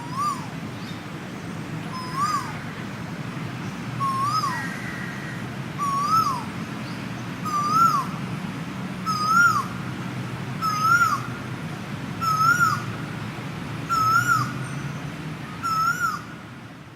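An animal calling: a single rising-then-falling note repeated about every second and a half, ten times, louder and slightly higher in the first half and then steady.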